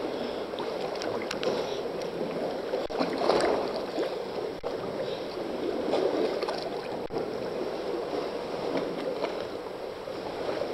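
Seawater sloshing and splashing against a camera held at the waterline while swimming, with louder surges about three and six seconds in.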